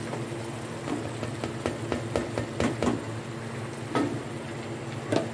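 A wooden spoon stirring chopped green bell peppers into a pot of potato curry, knocking against the aluminium pot: a quick run of knocks about a second in, then two single louder knocks near the end. A steady low hum runs underneath.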